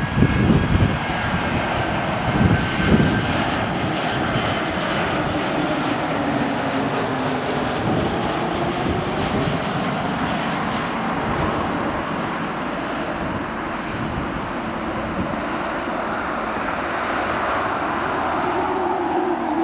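Airbus A320-214's twin CFM56-5B turbofan engines as the airliner passes low on final approach and flares to land: a steady jet roar with a whine that slowly falls in pitch as it goes by. A few low thumps come in the first three seconds.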